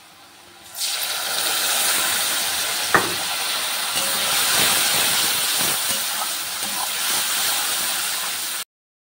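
Wet ground masala paste hitting hot oil in a steel kadhai, starting about a second in with a sudden loud sizzling hiss that carries on steadily as the pan steams. A single knock sounds about three seconds in, and the sound cuts off abruptly near the end.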